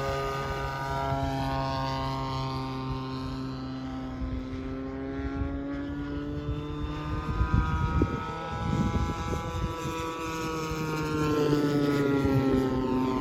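Propeller-driven radio-control model airplane flying past, its engine note falling in pitch, rising again as it comes back around, then falling once more near the end. Wind gusts rumble on the microphone about eight seconds in.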